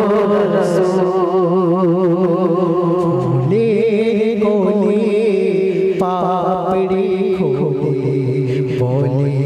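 A male singer performs a Bangla gojol, an Islamic devotional song, through a microphone. He sings long, ornamented lines with heavy vibrato over a steady drone-like held tone.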